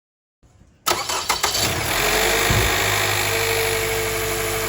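2017 Lexus NX200t's 2.0-litre turbocharged four-cylinder engine cranking briefly and catching about a second in, then settling into a steady idle on freshly changed 0W-20 oil.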